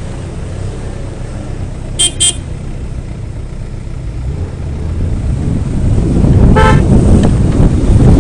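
Off-road vehicle engine running with a low rumble, broken about two seconds in by two quick horn toots. The engine noise then grows much louder from about five seconds in, with another brief tone partway through.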